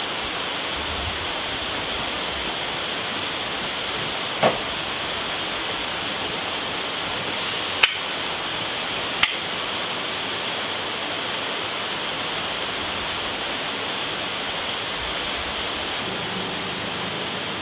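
Steady rushing of a stream, with three short knocks or clicks about four, eight and nine seconds in.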